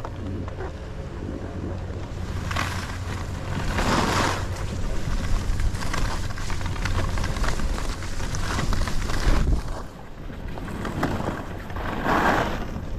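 Skis sliding over fresh powder snow with wind rushing over the microphone: a steady rushing hiss over a low rumble. It swells loudly about four seconds in and again near the end.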